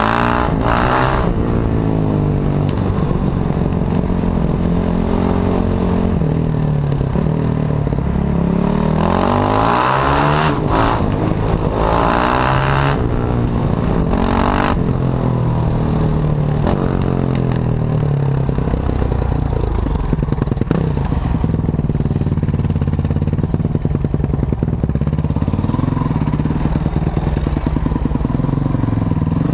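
Enduro dirt bike's engine revving up and falling back again and again as it is ridden through gears, heard close from the rider's helmet. A few short rushes of hiss come through about a third of the way in.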